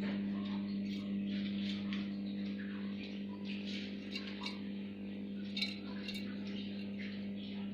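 Week-old puter (domestic turtle dove) squabs giving short, high, squeaky peeps, scattered irregularly, over a steady low hum.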